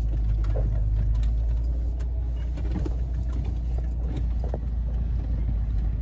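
Camper van running, a steady low engine and road rumble, with a few faint clicks and rattles.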